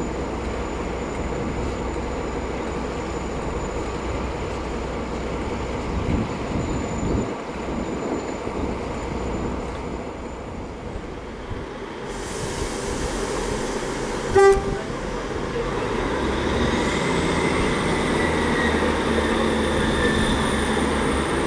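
Class 159 diesel multiple unit's underfloor diesel engines running steadily as the train pulls away. Past the middle comes one short toot of a train horn, then a second Class 159 at the platform with its engine running and a whine that rises and then holds steady.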